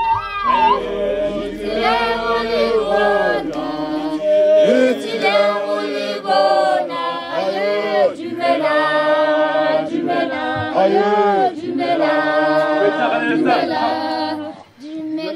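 A group of men and women singing together unaccompanied, several voices in harmony, in phrases broken by short pauses.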